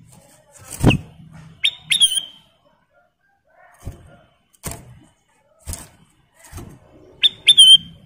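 Caged kutilang emas, a black-headed, orange-throated yellow bulbul, gives two short rising whistles about two seconds in and again near the end. Between them come knocks and thumps as it hops and flutters about the bamboo cage, the loudest about a second in.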